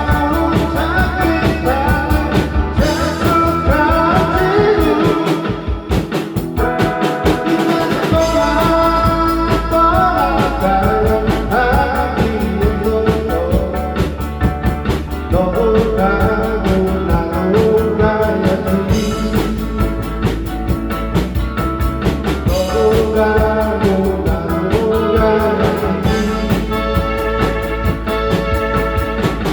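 Live band performing a rock song with a lead singer over bass and drums; the low bass and beat drop out for a couple of seconds about five seconds in, then come back.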